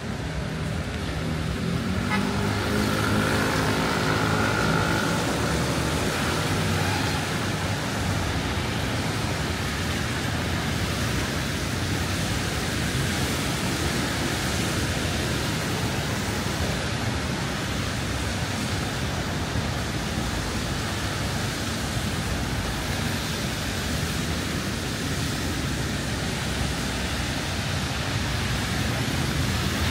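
City street traffic noise, a steady hiss of passing vehicles, with one motor vehicle's engine hum standing out for a few seconds near the start before fading into the general noise.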